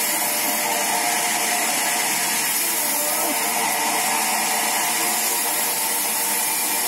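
Large sawmill band saw running steadily, a constant even machine noise, while a log is being fed along its table.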